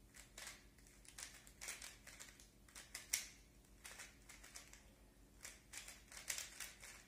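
A 3x3 plastic speed cube being turned by hand: quiet, irregular plastic clicking and clacking of the layers, a few turns a second with short pauses.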